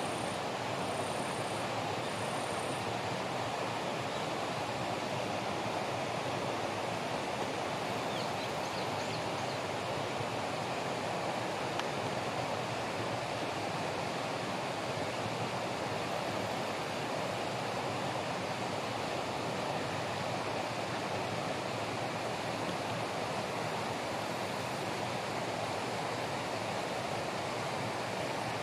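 Steady, even rushing noise of water. A high, pulsing buzz repeats a few times and stops about three seconds in.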